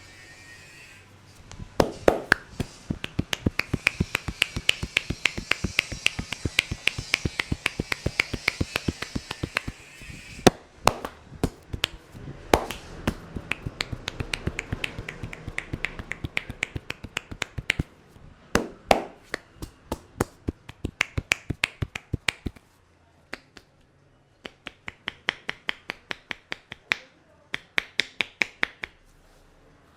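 Fast, even run of sharp snaps from a barber's hands during an Indian head massage, about five a second. The run stops briefly near the end, then comes back in short bursts.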